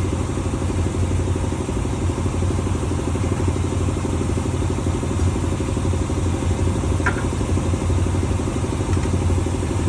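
Truck engine idling steadily, with a single light clank about seven seconds in.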